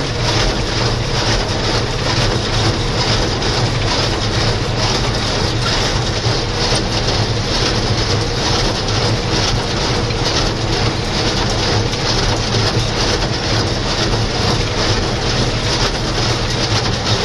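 John Deere 2140 tractor's diesel engine running steadily under load while driving a New Holland 268 square baler, with continuous rapid mechanical clatter from the baler.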